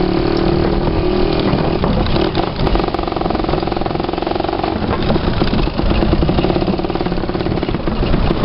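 Dirt bike engine running at low speed while riding, heard from the pillion seat, with its pitch shifting a couple of seconds in.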